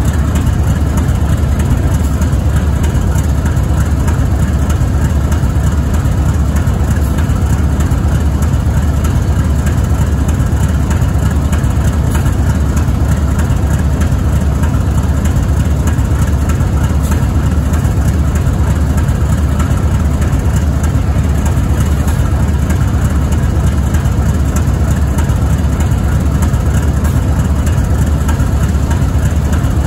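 GE ES44AC locomotive's GEVO-12 V-12 diesel idling: a steady low drone that holds an even speed throughout.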